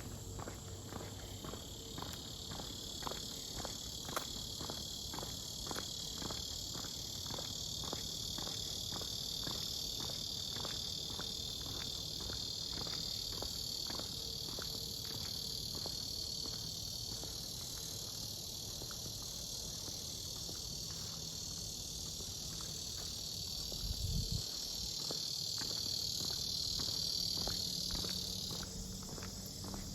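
Steady, high-pitched insect chorus trilling throughout, which falls away suddenly near the end. Underneath it are regular footsteps on the trail, about two a second, and a single low thump a few seconds before the end.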